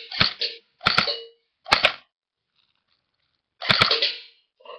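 Airsoft gun fired on full auto in short trigger taps, four quick bursts of two or three shots each, with a pause of about two seconds before the last burst.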